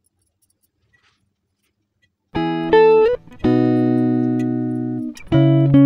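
Near silence for about two seconds, then background music of plucked notes and chords, each struck sharply and left to ring out.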